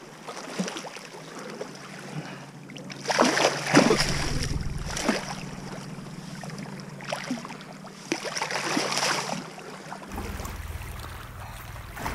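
Sea water splashing and washing over shore rocks as a hooked pollack is handled in the shallows, with louder surges about three seconds in and again around eight seconds.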